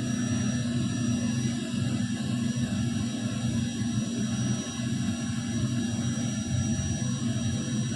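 A 4440-IC amplifier powered on with no music playing, its speaker putting out a steady low hum with hiss over it.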